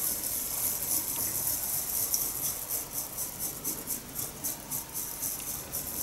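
Fingers working over the split bamboo tines of a matcha whisk, a fast, dry, continuous rattling.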